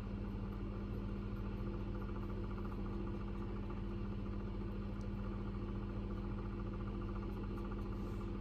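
Steady low hum at a constant pitch, like a running motor or electrical equipment, unchanging throughout, with a faint tick about five seconds in.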